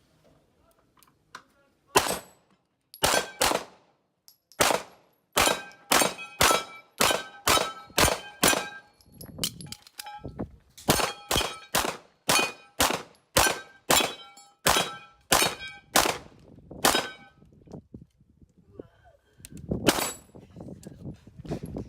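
Rapid semi-automatic pistol fire during an IPSC course of fire, about thirty shots in quick strings with two short pauses, many of them followed by the ringing clang of steel targets being hit.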